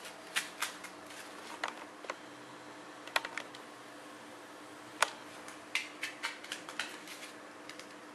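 A hand tapping and clicking on a marble tile floor: irregular clusters of sharp taps, the loudest about five seconds in, over a faint steady hum.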